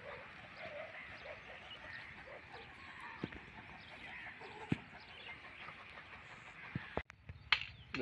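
Many small birds chirping at once outdoors, fairly faint, with a few separate sharp knocks scattered through.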